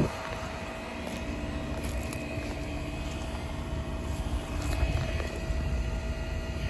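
Outdoor unit of a 2007–08 Bryant Preferred heat pump running in cool mode: a steady hum of the condenser fan and scroll compressor, with a low rumble.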